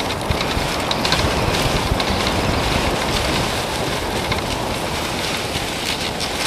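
Dog sled running over snow: a steady rushing hiss of the runners sliding, with faint scattered ticks.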